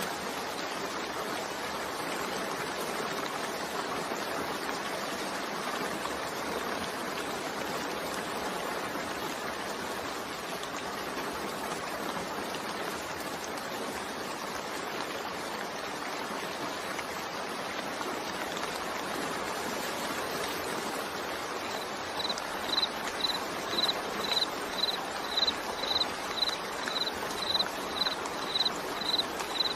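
Steady rain mixed with white noise, an even hiss. About three-quarters of the way through, a short high chirp starts repeating about twice a second, louder than the rain.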